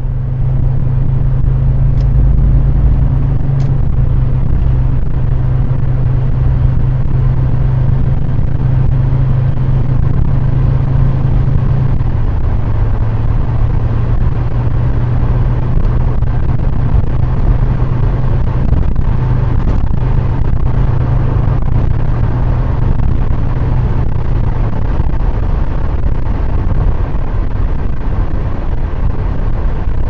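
A car driving at steady speed, heard from inside the cabin through a 70mai A800s dashcam's microphone: continuous road and engine noise with a loud, steady low hum that drops slightly in pitch about halfway and fades out near the end. The uploader reports a sound problem with this dashcam's recording on firmware 1.0.3ww.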